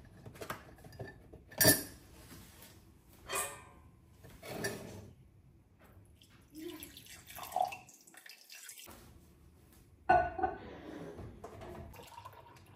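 Making a mug of tea: sharp clinks of a ceramic mug and teaspoon, then hot water poured from a stainless steel kettle into the mug. About ten seconds in, milk is poured from a plastic jug into the mug.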